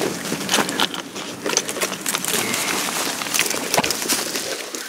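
A hiker pushing through dense dry brush: twigs and branches crackle and scrape against clothing and a backpack, in many irregular short snaps, along with steps on loose ground.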